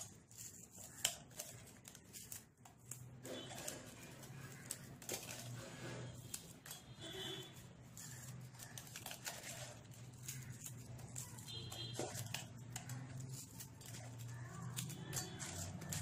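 Hands working crisp bread pieces in a steel bowl: crumbling, rustling and scattered clicks against the bowl, with one sharper click about a second in.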